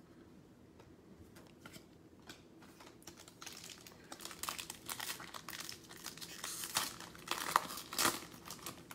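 A foil trading-card pack wrapper being torn open and crinkled by hand. A few light ticks of handling come first; the crinkling starts about a third of the way in and is loudest near the end.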